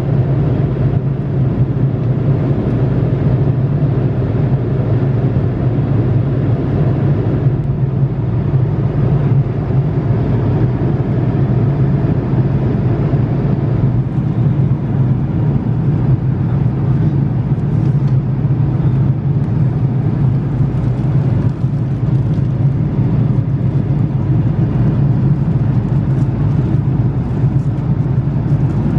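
Steady cabin noise of an Airbus A330-300 in cruise: the drone of engines and airflow, a low, even hum that does not change.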